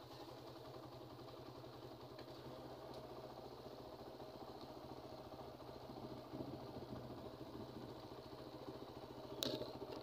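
Small motorcycle engine running steadily at an even pace while riding, with a brief knock near the end.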